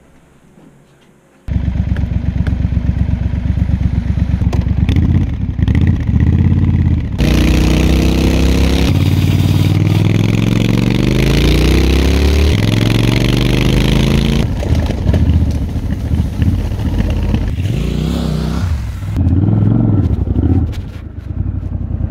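Triumph Scrambler 1200's parallel-twin engine comes in suddenly about a second and a half in, then runs and revs, rising in pitch several times as the motorcycle accelerates.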